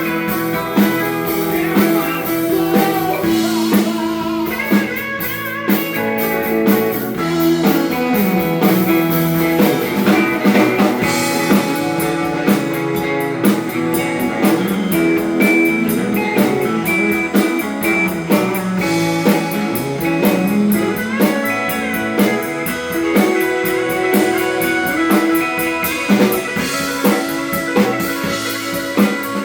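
Live band playing an instrumental break in a blues-rock style: guitar over a steady drum kit, with no vocals.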